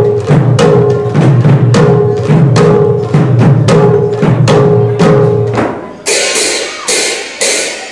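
Khols, the Assamese double-headed clay drums, beaten in a fast, steady rhythm of deep booming and ringing strokes, with hand cymbals clashing along. About six seconds in the drums stop and only the cymbals go on, clashing about twice a second.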